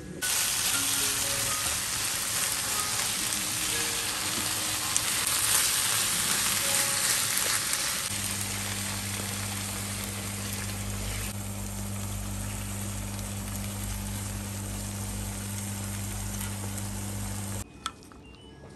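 Ground-meat sauce with mushrooms and green pepper sizzling in a frying pan. About eight seconds in, a steady low hum joins the sizzle, which eases a few seconds later and then cuts off suddenly near the end.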